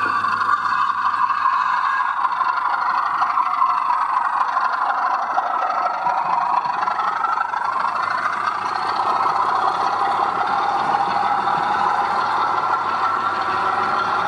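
00 gauge model locomotive running on the layout: a steady mechanical running noise whose pitch drifts slowly down and back up, over a low steady hum.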